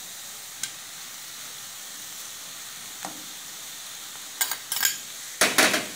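Diced green papaya frying in olive oil, a steady sizzle, while a metal spoon clinks and scrapes diced tomato out of a glass bowl into the pan. There are a few short clinks, then a louder scrape near the end.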